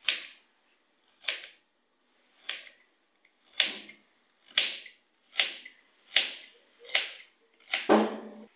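Kitchen knife slicing a carrot into rounds on a plastic chopping board: a sharp crunch and knock on the board with each cut, about nine slow, even cuts roughly a second apart.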